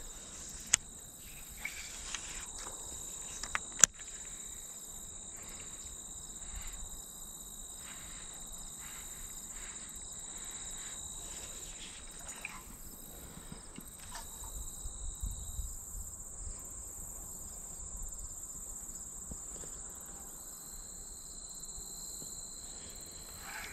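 Insects trilling steadily in two high, unbroken tones; the lower tone stops for a few seconds past the middle. A couple of sharp clicks sound near the start.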